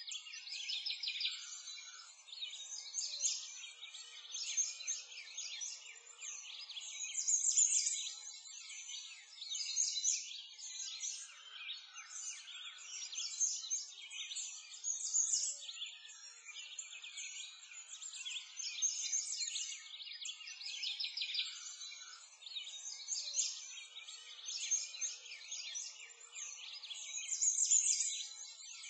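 A dense chorus of many small songbirds chirping and trilling without pause, all high-pitched with nothing low beneath, swelling and fading every few seconds.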